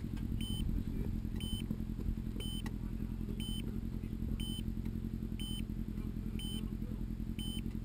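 Motorcycle engine idling steadily at a standstill, with a short electronic beep repeating about once a second.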